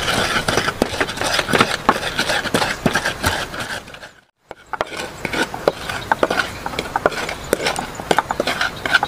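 Stone pestle (ulekan) grinding and knocking against a clay mortar as chilies are crushed into sambal, a quick, uneven run of clicks and scrapes. It cuts out briefly near the middle, then the pestle scrapes the paste out of the tipped mortar into a metal pot.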